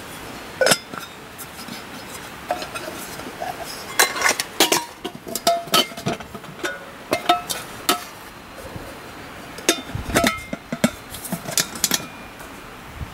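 Metal camp cookware clinking and knocking as a pan lid is set on and lifted off stacked pots and a steel billy can. There are many sharp clinks, some with a brief ring, coming in two busy clusters with pauses between.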